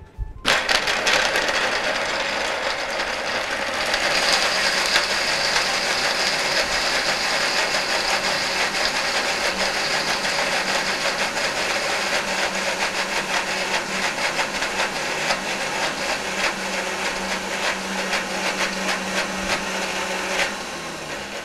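Countertop blender switching on and running steadily at high speed, puréeing cooked carrot, onion and nuts with a little water into a thick, rather dry paste. It cuts off shortly before the end, and the motor spins down.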